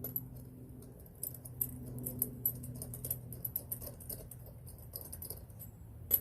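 Irregular light metallic clicks and clinks of hand tools and bolt hardware being worked, over a steady low hum.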